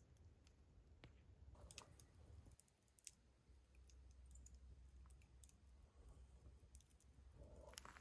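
Near silence: faint scattered clicks over a low hum.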